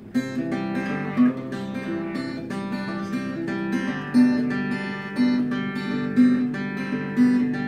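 Acoustic guitar strummed in a steady rhythm through a run of chords, with a few louder accented strums.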